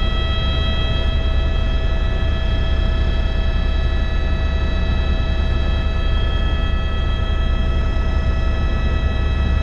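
Helicopter in climbing flight, heard from inside the cabin: a loud, steady deep rotor drone with a steady engine whine over it.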